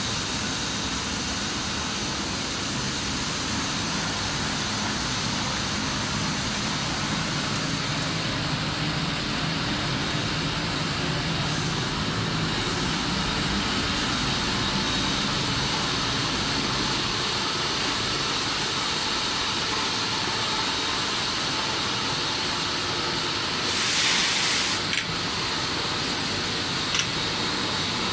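Bubble-film making machine running with a steady mechanical hum and hiss. A short, louder hiss about a second long comes near the end.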